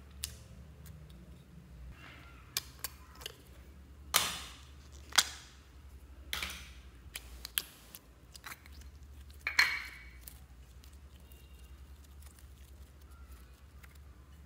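Slime handled by hand and plastic slime containers worked over a glass bowl: scattered wet squelches, clicks and taps, the loudest about four, five and nine and a half seconds in, then only a low steady hum.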